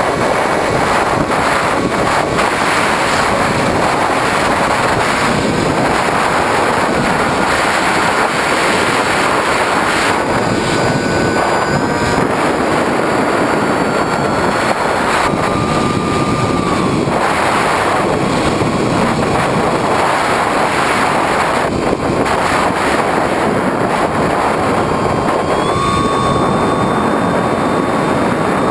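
Electric motor and propeller of a Skywalker 1900 FPV plane heard from the onboard camera: a steady whine over heavy wind rush, its pitch stepping up and down with the throttle and rising near the end.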